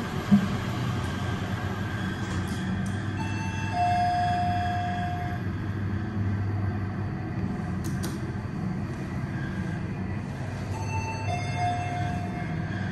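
Passenger lift car travelling with a steady low hum. A two-tone descending chime (a short high note, then a longer lower one) sounds twice, about three seconds in and again near the end. A single sharp knock comes right at the start.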